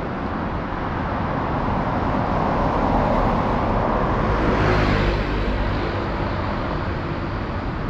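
Road traffic on a wide city street: a car passes close by, its tyre and engine noise swelling to a peak about five seconds in and then fading.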